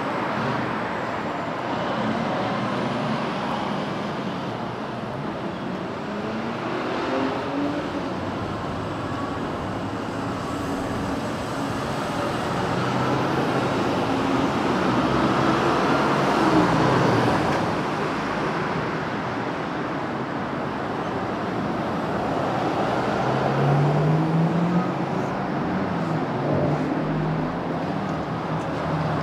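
Road traffic on a city street: cars passing, loudest about halfway through, with an engine accelerating in rising pitch near the end.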